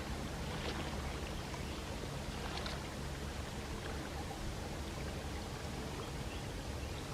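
Sea waves lapping gently at the shore: a steady wash of water with a couple of faint splashes.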